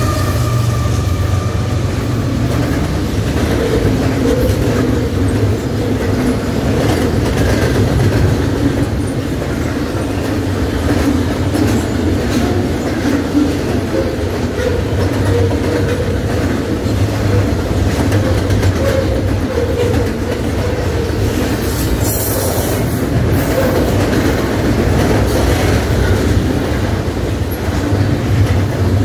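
CN freight train of double-stacked intermodal container cars passing close by: a loud, steady rumble of wheels on rail, with the clickety-clack of the wheels over rail joints.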